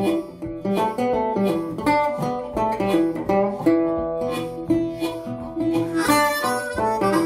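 Acoustic outro music: plucked guitar with a harmonica, a quick run of picked notes with some held tones.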